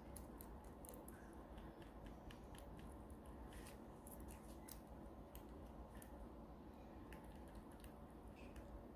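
Near silence: faint, scattered light clicks and ticks from small objects being handled on a work table, over a low steady room hum.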